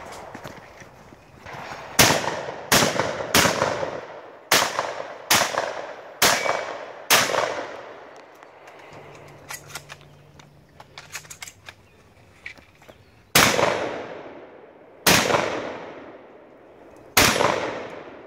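Gunshots from a competitor shooting a 3-gun stage: seven quick shots starting about two seconds in, then a pause with faint clicks, then three slower shots about two seconds apart, each shot trailing off in an echo.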